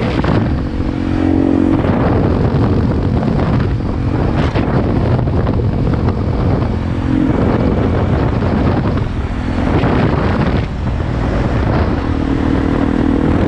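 Single-cylinder four-stroke dual-sport motorcycle riding along, its engine note coming through now and then under a constant rush of wind over the microphone.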